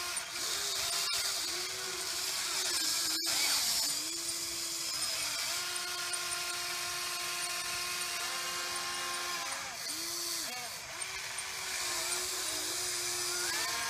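Huina 580 RC excavator's electric motors whining as the boom, arm and bucket scoop dirt and the turret swings; the pitch steps up and down as each movement starts and stops. One sharp click about three seconds in.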